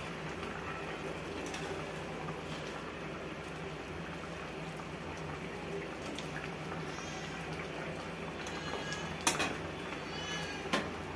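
Fish curry gravy simmering and bubbling in a metal kadhai on a gas burner, stirred with a flat metal spatula. Two sharp knocks of the spatula against the pan near the end, about a second and a half apart.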